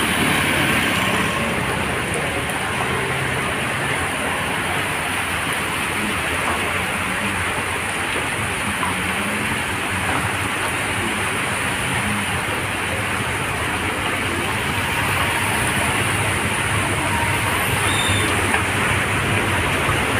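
Steady rush of heavy rain on a flooded street, with motorbikes and a minivan running through the floodwater.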